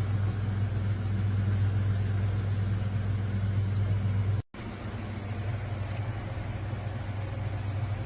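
Sliding window sash rolling along its rail, a steady low rumble that cuts off sharply about halfway and starts again a little quieter.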